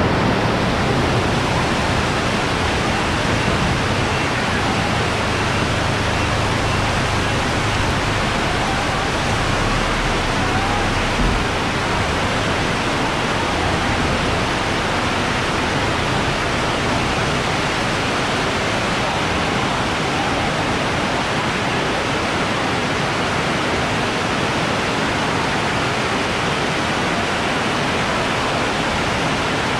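Super heavy rain pouring down steadily, splashing on wet pavement and the market roofing, with a low rumble underneath for about the first ten seconds.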